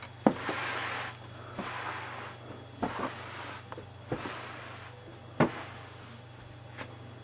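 Scattered light knocks and clicks, about eight over several seconds, the loudest about five and a half seconds in, over a steady low hum.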